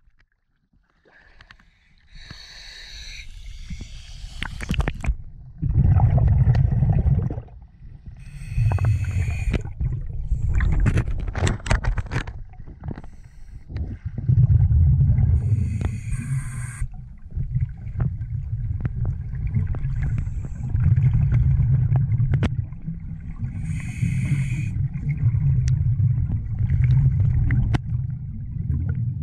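Scuba diving underwater, heard through a camera housing: a low, muffled rumble of water and bubbles, with a hissing burst of regulator exhaust bubbles about every six to seven seconds.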